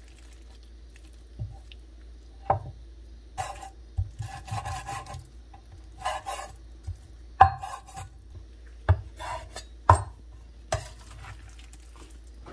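Cleaver chopping raw chicken on a wooden cutting board: about seven irregular knocks of the blade striking the wood, between bouts of scraping and rubbing as the meat and blade slide across the board.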